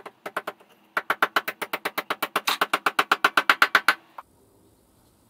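Plastic-faced hammer tapping rapidly on a new bushing, driving it into a BMW F800GT gear-shift lever: a few light taps, then about ten sharp taps a second for some three seconds, and one last knock.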